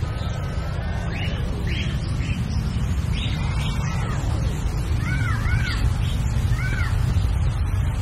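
A field recording fed through the echoes of a Bastl Thyme delay unit: short call-like chirps repeat as echoes, each rising and falling in pitch, over a steady low rumble.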